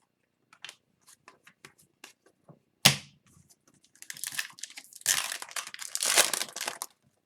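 Foil wrapper of an Upper Deck hockey card pack being torn open and crinkled, in two spells near the end. These follow a few soft ticks and one sharp snap about three seconds in.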